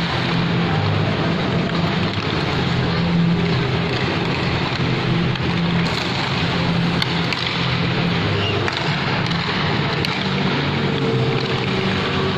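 Steady ambience of a busy mall ice rink: a constant wash of noise with a low hum under it, and a few faint sharp clicks.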